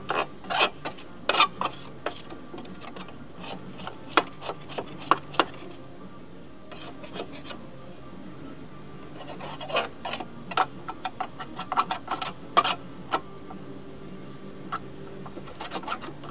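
A hand scraping tool scraping and knocking caked dried grass off the underside of a steel lawnmower deck. Quick, irregular, sharp strokes come in two main runs, one at the start and another from about ten seconds in, with a few scattered strokes between.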